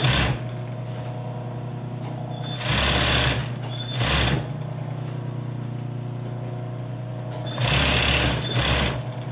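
Industrial sewing machine stitching in short runs: one at the start, a longer one about three seconds in, a brief one at four seconds, and a run of about a second near the end. Its motor hums steadily in the pauses between runs.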